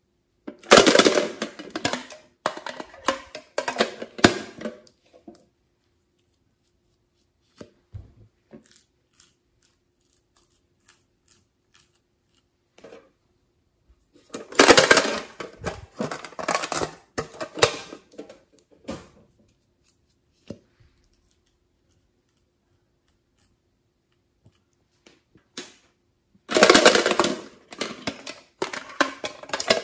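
Small metal novelty tins being handled, giving three bursts of clattering and rattling a few seconds each: about a second in, midway, and near the end.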